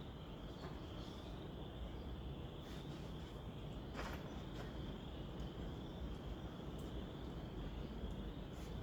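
Faint, steady high-pitched insect chirring, with a few light clicks, the sharpest about four seconds in.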